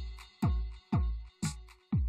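Electronic drum loop: a deep kick drum whose pitch drops with each hit, about two hits a second, with a bright cymbal-like hit over one of them and a sustained high synth tone.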